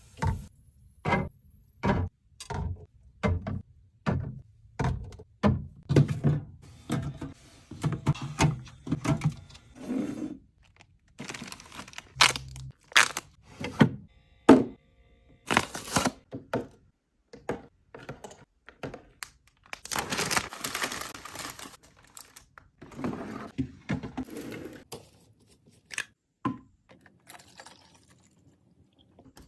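Items being placed one after another into a mini fridge during a restock: a run of knocks and thunks, about one or two a second, with a stretch of rustling packaging about twenty seconds in.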